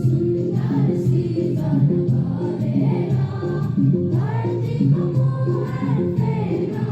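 Music with a group of voices singing a melody over a steady, rhythmically repeating accompaniment.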